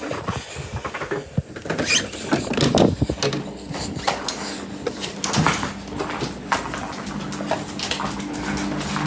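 An alarm clock being handled: a run of clicks and knocks, then a steady low hum from about three seconds in.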